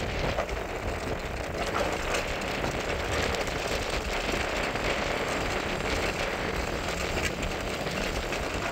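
Mountain bike riding down a steep dirt trail: a steady rush of wind on the microphone and tyres rolling over rough ground, with a dense rattle of small clicks and crackles.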